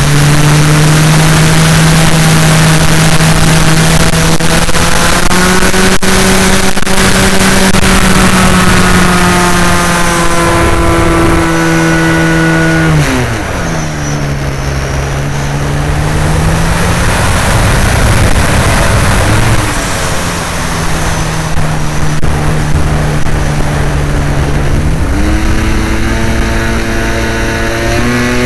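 Onboard sound of an RC Edge 540 model plane's motor and propeller running at high throttle, with rushing air over the camera. About halfway through it throttles back to a lower, steady pitch, then opens up again near the end.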